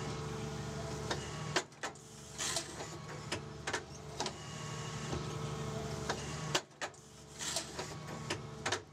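Bracke P11 planting unit working on its base machine's crane: a steady machine hum, with several sharp mechanical clacks from the unit's mechanism at irregular intervals.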